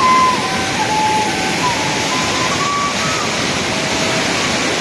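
Rushing water, a steady loud roar of a fast mountain river or falls. A faint melody of held, stepping notes sounds over it for the first few seconds.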